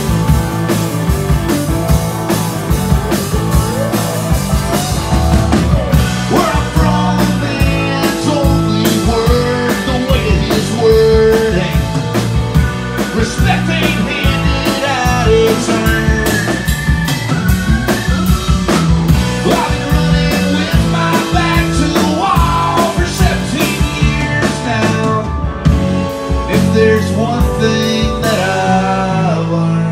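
Live rock band playing: drum kit, strummed acoustic guitar, electric guitar and a Nord keyboard, with a lead melody sliding between notes over the beat.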